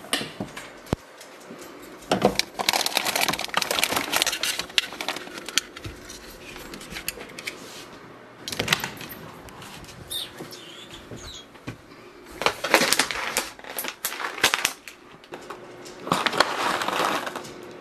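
Kitchen handling noises in several short spells: clicks and knocks of things moved in a refrigerator, a plastic yogurt cup set down on a countertop, and a plastic bag of pumpkin seeds crinkling near the end.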